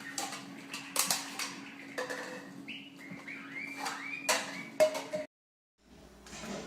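Short chirping bird calls among knocks and clattering, over a steady low hum. The sound cuts out for about half a second a little after five seconds in, and then a different stretch of clattering follows.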